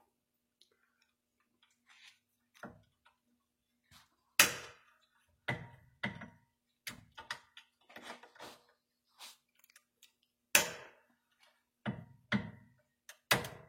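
Irregular sharp metallic clicks and clanks of hand tools working a heated, seized fine-thread fitting loose, a second or so apart with a few louder knocks. A faint steady hum runs underneath.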